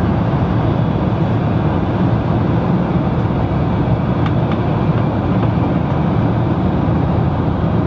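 Steady cabin noise of a jet airliner: an even, unbroken rush of engine and air noise, heaviest in the low range, with a few faint ticks.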